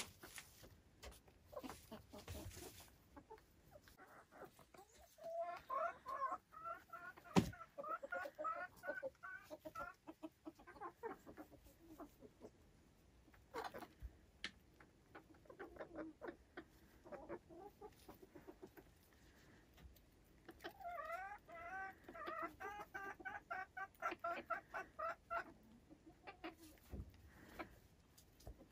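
Silkie chickens clucking in two runs of quick repeated calls, one about five seconds in and another about twenty seconds in. Scattered light clicks and one sharp knock about seven seconds in.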